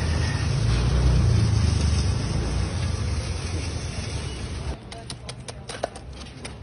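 A steady rushing noise with a strong low rumble while coarse salt pours from a sack into a metal churn barrel. About five seconds in, it gives way to sharp, irregular ticks of an ice pick chipping a slab of ice.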